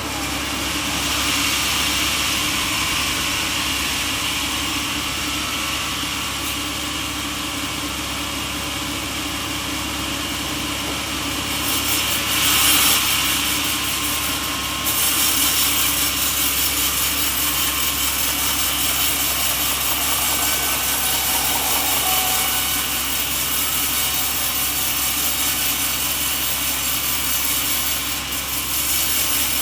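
Sawmill saw running steadily and cutting through a coconut log: a continuous machine hum with the hiss of the blade in the wood. It swells briefly about twelve seconds in, then runs a little louder from about halfway.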